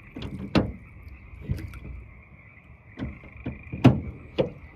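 A steady chorus of frogs, with a string of sharp knocks at irregular intervals, the loudest about four seconds in.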